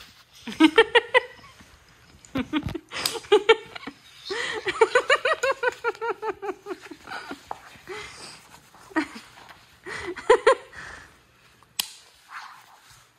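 A woman laughing in several bouts of quick pulsing "ha"s. The longest bout, about four seconds in, falls in pitch. A single sharp click comes near the end.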